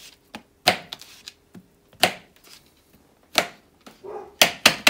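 A kitchen knife slicing through a banana, the blade knocking down onto a paper plate on the countertop with each cut: a run of sharp knocks with softer ticks between, the last two close together near the end.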